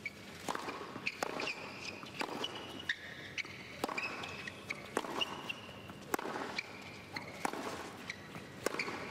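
Tennis rally on a hard court: the ball is struck by rackets and bounces, giving sharp pops about once a second. Short, high shoe squeaks come between the shots as the players move.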